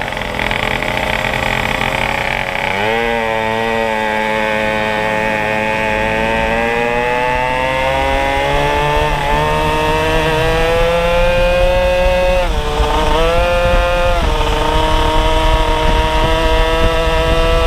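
Tuned two-stroke moped engine pulling away from a standstill on a larger carburettor jet, its pitch climbing steadily for several seconds. Near the end it drops sharply twice as the throttle is eased, then holds at a steady cruise.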